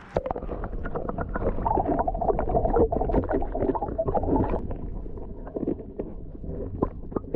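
Underwater sound from a camera held below the river surface: muffled gurgling and rumbling water with many small clicks and knocks, the high end dulled. It starts abruptly as the camera goes under.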